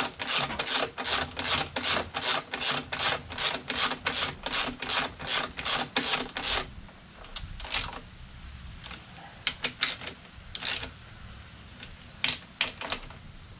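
Hand ratchet wrench tightening exhaust mounting bolts: a quick even run of rasping pawl clicks, about three strokes a second, for roughly the first half, then only a few slower, scattered strokes.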